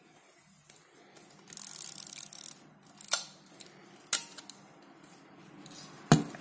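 Ricoh 500G rangefinder camera's film-advance and shutter mechanism worked by hand: a rasping, ratcheting stroke about a second and a half in, then three sharp clicks, the loudest near the end.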